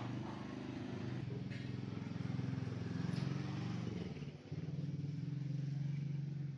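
An engine running steadily with a low hum. It dips briefly about four and a half seconds in, then picks up again.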